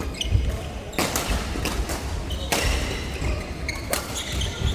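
Racket rally in an echoing sports hall: three sharp hits about a second and a half apart, with short high-pitched squeaks between them.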